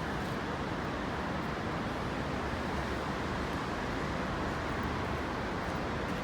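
Steady rushing background noise, even and unchanging, with no distinct events.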